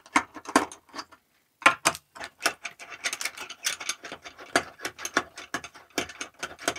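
Screwdriver undoing the screws of a dome camera's housing: a run of irregular clicks and ticks, pausing briefly about a second in.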